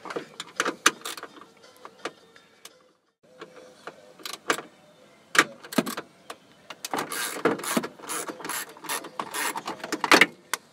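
1/4-inch ratchet with a 7mm socket and extension backing out the instrument cluster's mounting bolts: irregular runs of sharp clicks from the ratchet pawl and the tool against the bolt. There is a short pause about three seconds in, and the clicks come thick and fast near the end.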